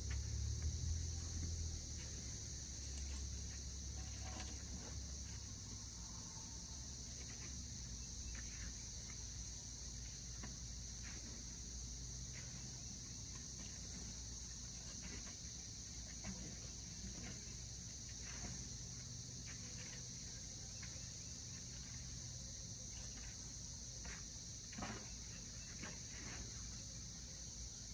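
Steady, high-pitched insect chorus droning without a break, with scattered soft rustles and clicks of hands digging through soil, and a low rumble in the first few seconds.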